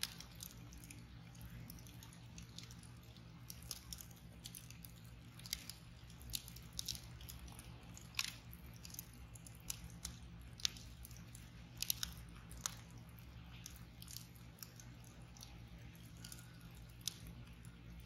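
Wood campfire crackling: a log burning over glowing embers gives irregular sharp pops and snaps, thickest through the middle, over a faint steady low background.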